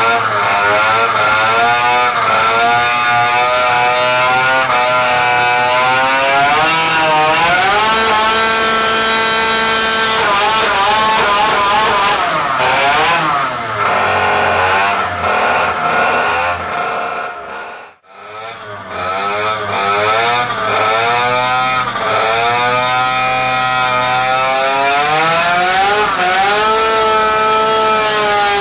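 Turbocharged 50cc Minarelli AM6 two-stroke engine on a dyno test run, revving up and down over and over. A high whine climbs with the revs and then drops away sharply about 12 seconds in. The engine sound falls away briefly about 18 seconds in, then the revving resumes and ends holding steady at high revs.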